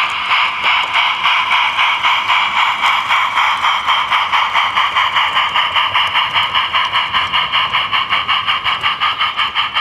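Sound card in a gauge 1 45xx Prairie tank locomotive playing steam exhaust chuffs through the model's small speaker as it moves off under power: a hissy beat several times a second at an even pace.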